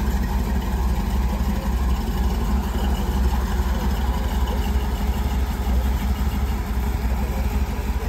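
The engine of a black 1955 Chevrolet two-door idling with a steady, low, pulsing rumble.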